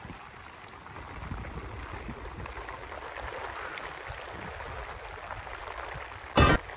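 Steady hiss of rain falling, with a low rumble underneath. Near the end, a single short, loud burst.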